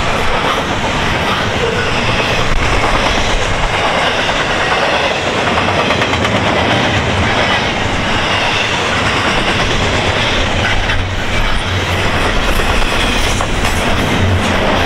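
Double-stack intermodal well cars of a freight train rolling past at about 49 mph: steel wheels running on rail in a loud, steady noise.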